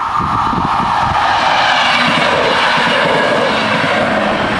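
SNCB MS80 electric multiple unit passing over the level crossing at speed. Its wheels knock over the rail joints in the first second or so. A loud rush of running noise then builds and holds.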